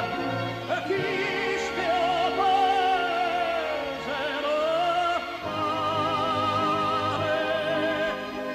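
Background music: an operatic voice singing long held notes with a wide vibrato over orchestral accompaniment.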